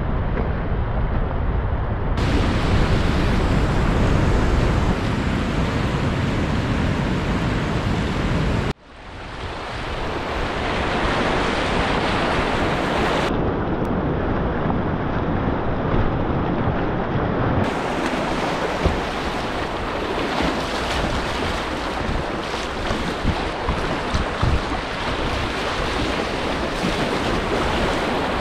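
Rushing whitewater: first a waterfall pouring down beside a fish ladder, a dense noise heavy in the low end, then after a sudden cut about nine seconds in, river rapids rushing and churning around a kayak.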